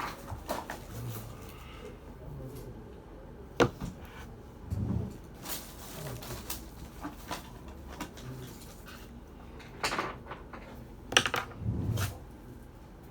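Scattered knocks and clicks of things being handled on a bench, with a few short low thumps: sharp clicks about three and a half seconds in and again around ten and eleven seconds, thumps around five and twelve seconds.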